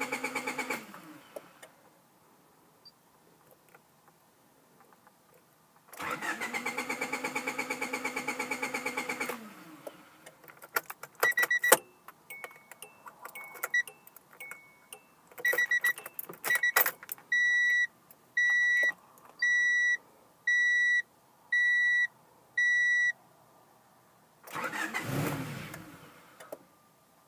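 Starter motor cranking the 1993 Honda Prelude Si's H23 four-cylinder engine without it catching: once, stopping just after the start, then again for about three seconds, starting about 6 s in. The engine gets fuel but no spark. Then come scattered clicks and knocks, a warning chime beeping about once a second six or seven times, and a brief rush of noise near the end.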